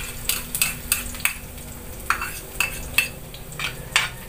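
Chopped onion and garlic frying in hot oil in a wok, with a steady sizzle. A metal spatula scrapes and knocks against the pan about ten times as the aromatics are stirred.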